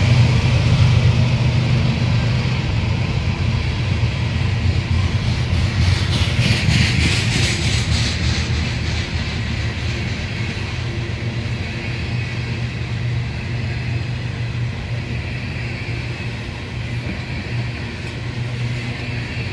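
Coal train's hopper cars rolling past: a steady low rumble of steel wheels on the rails that eases slowly, with a brief stretch of brighter, rattling clatter about six seconds in.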